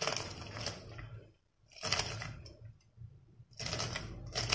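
Handfuls of soaked basmati rice being scooped by hand and dropped into the pot, the wet grains rustling and pattering in three short bouts with brief pauses between.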